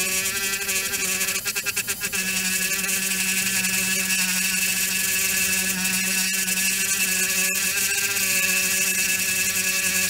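Small handheld electric rotary tool running with a steady high whine, grinding a damaged solder pad on a circuit board clean so that it will make good contact again. The whine wavers rapidly for a moment about a second and a half in as the bit bites.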